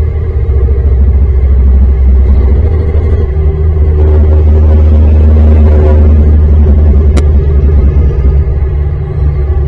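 Loud, steady low drone with sustained tones, like a dark ambient background music track, with a single short click about seven seconds in.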